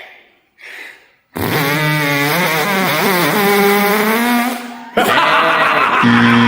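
Beatbox mouth sounds: a long vocal tone that wavers up and down, then from about five seconds in a loud buzzing, rasping chainsaw imitation made with the mouth.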